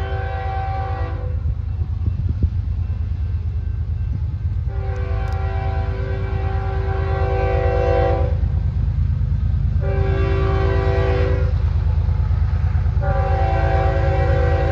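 Train's multi-chime air horn sounding the grade-crossing signal over a steady low rumble of the moving train. One long blast ends about a second in, then comes another long blast, a short one, and a long blast that starts near the end.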